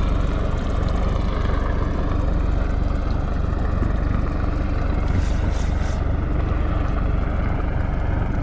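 Fishing boat's engine running steadily, a low drone with a faint hum, and a brief hiss about five seconds in.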